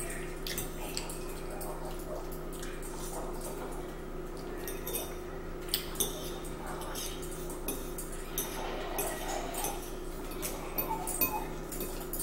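Metal forks clinking and scraping against ceramic bowls, with chewing and slurping of spaghetti, over a steady low hum. The clinks come as scattered short clicks, more of them in the second half.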